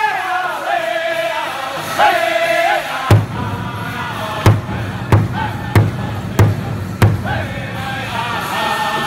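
Powwow drum group singing a chicken dance song in loud, high voices around a large hide-covered powwow drum. About three seconds in, six hard drum strikes land about two-thirds of a second apart while the singing goes on.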